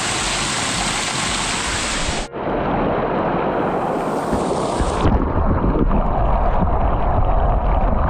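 Small waterfall pouring over rock, a steady loud rush of water. About two seconds in the sound turns muffled and deeper, with heavy churning as the water pours straight over the camera.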